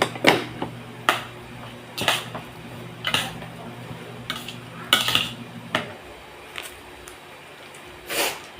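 Metal utensil clinking and scraping against a cooking pan, about one stroke a second, as food is stirred. A low steady hum runs underneath and stops about six seconds in.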